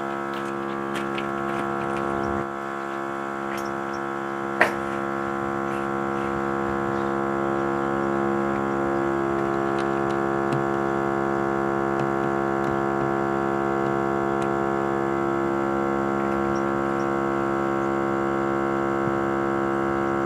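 Viking portable tire inflator's small electric compressor running steadily, airing up a Jeep tire, with a steady hum that grows slightly louder as it goes. A sharp click sounds about four and a half seconds in.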